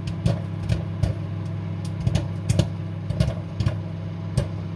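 Microwave oven humming steadily while popcorn kernels pop inside the bag: several sharp pops at irregular intervals.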